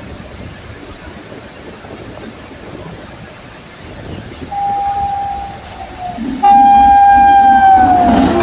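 Electric locomotive passing at speed with its horn sounding: a short blast, then about a second later a long, loud blast whose pitch drops near the end as the locomotive goes by, over the rumble of the train.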